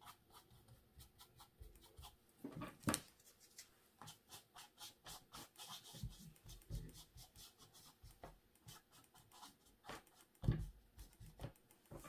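Faint, quick scratching of a small paintbrush dabbing paint onto a canvas print, several strokes a second, with a couple of louder knocks as the canvas is handled.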